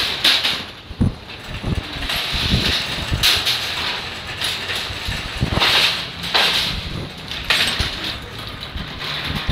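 Wire shopping cart rattling and clattering as it is pulled out and pushed along, its wheels rolling over a concrete walkway, with irregular knocks.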